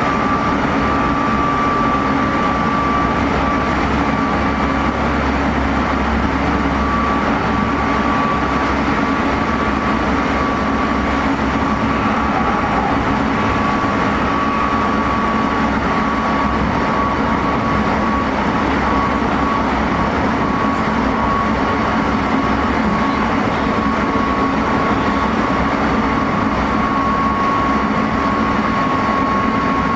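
Meitetsu 3500 series electric train running at speed, heard from inside the motor car: steady wheel-and-rail running noise with a high-pitched whine from the Toyo Denki GTO-VVVF traction equipment, the whine sinking slightly in pitch over the stretch.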